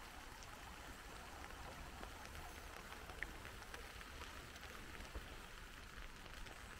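Light rain falling: a faint, steady patter with scattered drips and a couple of sharper drops.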